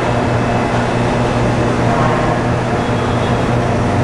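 Steady city traffic noise with a constant low engine hum.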